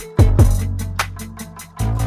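Background music with a hip-hop style beat: deep booming kick drums, hi-hat ticks and a sustained bass line.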